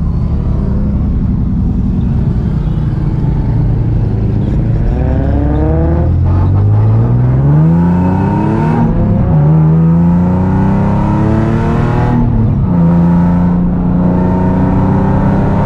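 Nissan 300ZX's V6 engine heard from inside its cabin, pulling away and accelerating. Its note climbs, drops at a gear change about nine seconds in, climbs again, drops at a second shift around twelve seconds, then holds steady at cruise.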